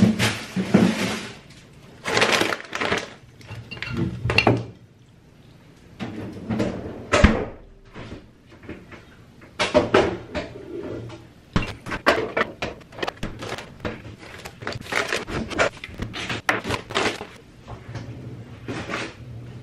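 Groceries being unpacked onto a kitchen counter: on-and-off rustling and crinkling of a mesh shopping bag and snack-chip packaging, with sharp knocks as items, among them a tin can, are set down.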